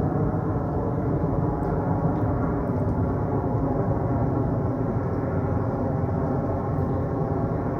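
Background ambient music: deep, sustained gong-like drone tones held steady throughout.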